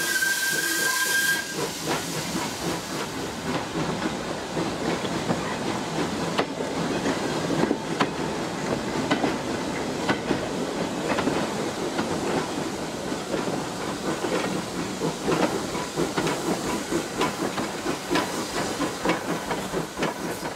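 Steam locomotive whistle sounding over a hiss of steam, cutting off about a second in. Then the locomotive works the train along, with pulsing exhaust beats and steam hiss over the rattle of the carriages.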